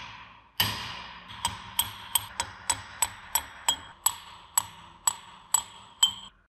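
Repeated hammer blows on the rusted, seized auger of a cast-iron Dorkert No. 8 meat grinder, driving it out of the barrel. About fourteen sharp metallic strikes, each ringing briefly, picking up to two or three a second after about a second.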